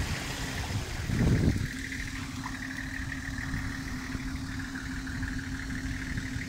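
Nissan Patrol 4x4's engine running at a low, steady speed as it crawls through deep muddy ruts. There is a brief loud rush about a second in.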